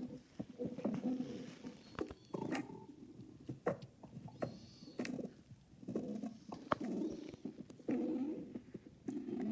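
Human stomach growling, heard up close: a string of short, irregular gurgles with small pops and clicks between them.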